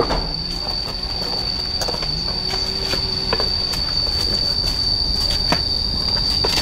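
Insects droning with one steady, unbroken high-pitched tone, with scattered light clicks and knocks.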